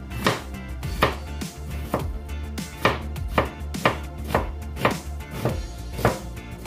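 A kitchen knife slicing an onion on a cutting board, the blade knocking on the board in an even rhythm of one or two cuts a second.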